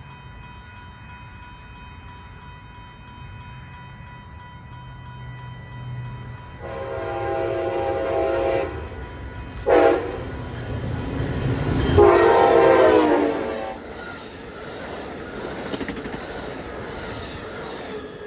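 Amtrak Pacific Surfliner train led by a Siemens locomotive sounding its multi-chime horn as it approaches: a long blast, a short toot, then a louder long blast as it draws level. The rumble of the passing train and its wheels on the rails follows.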